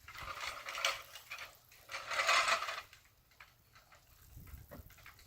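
Sump pump discharge water gurgling and bubbling up out of a hole in the ground from a ruptured buried discharge pipe, in two irregular crackly bursts in the first few seconds, then dying down to faint scattered pops.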